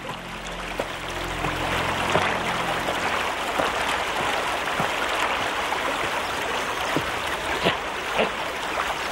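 Running water of a stream rushing steadily, with a few faint ticks scattered through it. A low hum fades out about three seconds in.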